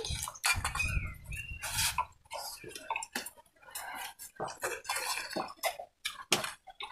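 Scattered clinks and taps of stainless-steel bowls, plates and a drinking tumbler, mixed with small eating and drinking noises from a meal eaten by hand.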